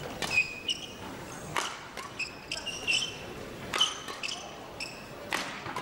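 Badminton rally: rackets striking the shuttlecock with sharp pops a second or so apart, and short high squeaks of players' shoes on the court floor between the hits.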